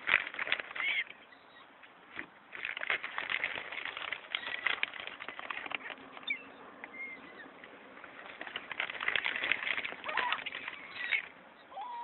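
A feeding flock of gulls calling over one another, in bursts: thickest at the start, again about three seconds in and around nine to eleven seconds, thinner in between.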